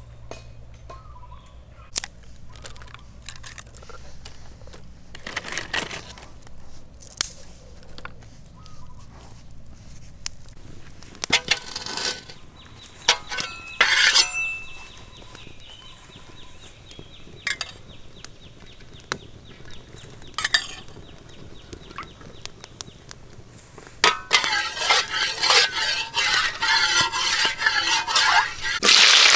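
Scattered clinks and knocks of pots, bowls and utensils while cooking. Near the end a dense crackling starts, then turns into a loud sizzle as food begins frying in hot oil.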